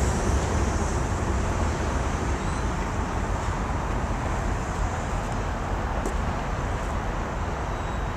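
Steady low rumble of road traffic and a departing freight train, slowly fading, with a faint click about six seconds in.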